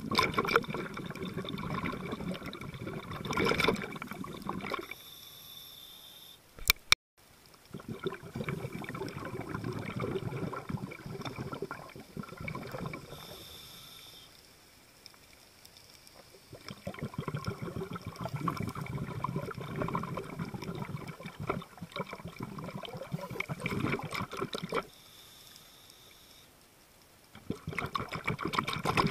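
Underwater water noise heard through a camera held below the surface: a dense crackling wash that swells and dies down in stretches, with one sharp click about seven seconds in.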